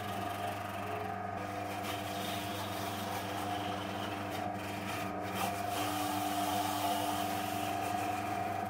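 Small wood lathe running with a steady hum while a turning tool held on the tool rest shaves the skin and flesh off a spinning apple, a continuous scraping over the motor.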